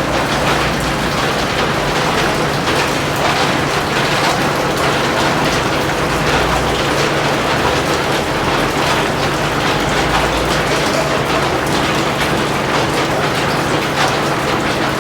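Heavy rain falling steadily, a dense crackle of drops hitting a surface, with a low rumble underneath.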